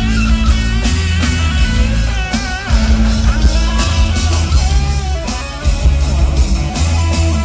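Live rock band playing at full volume: a Stratocaster-style electric guitar plays a lead line of bent, wavering notes over drums and bass.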